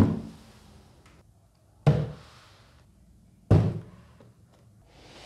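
Three heavy thuds about a second and a half apart as cardboard speaker boxes are set down one after another on a tabletop, each dying away briefly, then a soft whoosh near the end.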